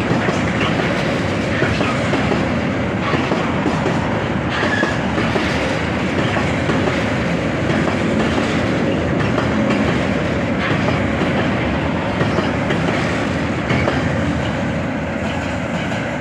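Freight train of GATX tank wagons rolling past, the wheels clattering steadily on the rails; the sound eases slightly near the end as the last wagon goes by.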